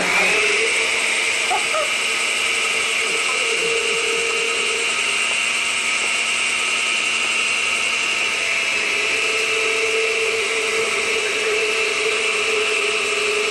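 Countertop blender switched on and running at one steady speed, blending lemon juice as olive oil is poured in through the lid to make a marinade.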